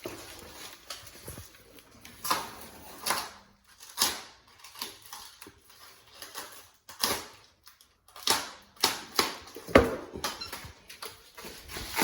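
Blinds and their packaging being handled: an irregular string of sharp knocks, clacks and rustles, with one heavier thump about ten seconds in.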